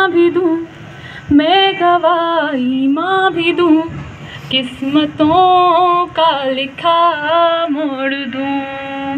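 A woman singing a solo vocal melody into a microphone, with held notes that slide up and down between short breaths.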